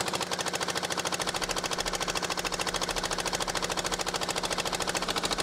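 Small fishing boat's single-cylinder diesel engine running steadily under way, a rapid, even chugging beat.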